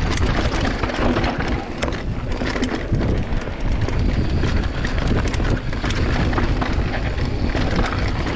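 Giant Trance 27.5 mountain bike riding down a dirt trail: a steady rush of wind rumble on the microphone, tyres rolling over the dirt, and frequent clicks and rattles from the bike over rough ground.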